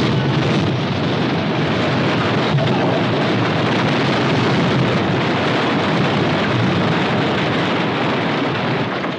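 Masonry building collapsing: a loud continuous rumble and crash of falling stone, beams and rubble, easing off near the end.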